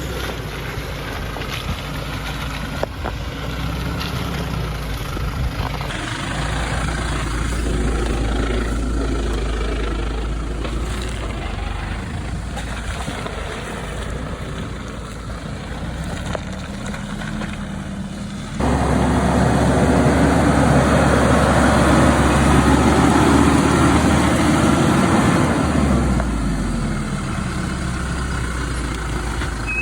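A four-wheel-drive car's engine running while it manoeuvres on a muddy track. About two-thirds of the way in it grows much louder for about seven seconds, as if working hard under load, then the note drops away.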